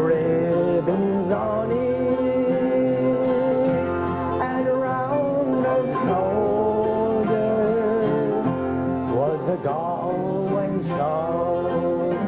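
A man singing a song with long held notes, accompanied by guitars.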